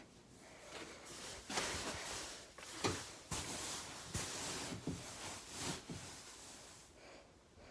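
Blankets being handled and pushed into place, rustling and brushing in waves, with the phone's microphone rubbing against the fabric and a few soft bumps.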